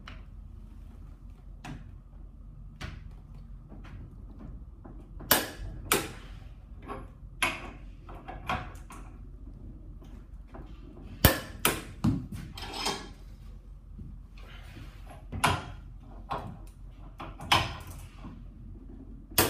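Sharp clicks and knocks, about a dozen spread unevenly through, from a click-type torque wrench set at 280 newton metres being pulled on a bolt that an impact wrench has already tightened. The wrench clicks over without turning the bolt, the sign that the bolt already holds 280 newton metres.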